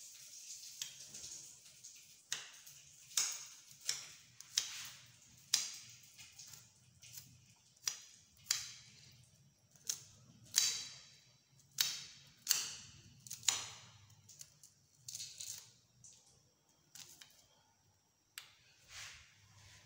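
Knife cutting an onion, a crisp stroke roughly once a second at uneven spacing, thinning out near the end.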